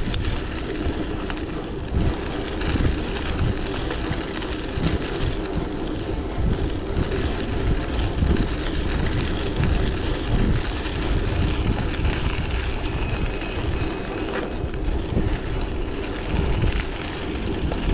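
Wind buffeting the microphone and bicycle tyres rumbling along the path while riding, a steady gusty rush with no let-up.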